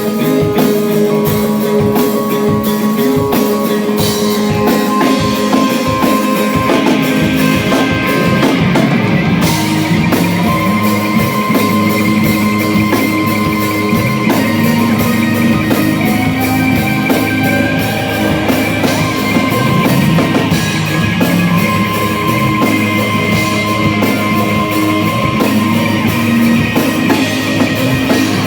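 Live rock band playing, with guitars over a drum kit.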